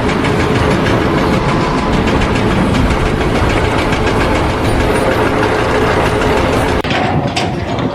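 A heavy engine running loudly and steadily, a dense mechanical noise that thins out about seven seconds in.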